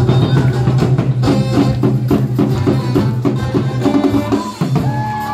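African-style show music driven by a fast drum rhythm of about four beats a second. The drums drop out about four and a half seconds in, as long held tones take over.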